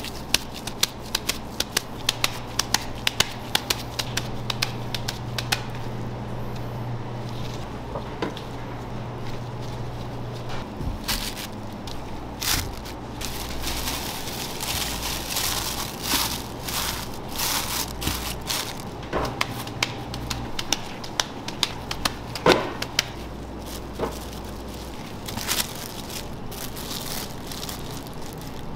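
Raw ground beef being packed into balls by gloved hands: a run of quick, sharp sticky clicks and squishes. Later comes the crinkling of a plastic sheet as the meatballs are laid into a lined tray. A low steady hum sits underneath for the first ten seconds or so.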